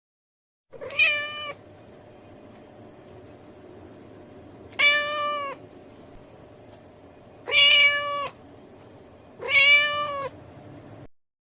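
Domestic cat meowing four times, each a short, high meow about two to three seconds apart, over a faint steady background hiss.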